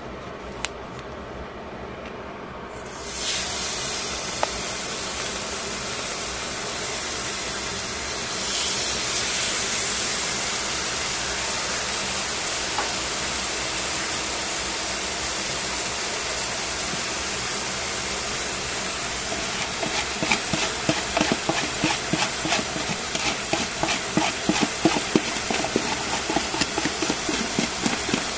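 Marinated pork slices sizzling in a stainless steel frying pan. The sizzle starts suddenly about three seconds in as the meat goes into the hot oil, and from about twenty seconds it is broken by frequent crackling pops of spattering fat.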